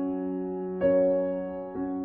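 Slow instrumental background music with sustained notes, new notes coming in about a second in and again near the end.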